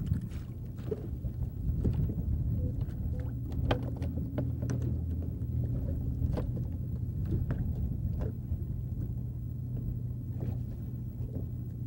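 A bass boat's motor running with a low, steady hum, a fainter higher tone in it stopping about six and a half seconds in, with scattered small clicks and knocks on the boat.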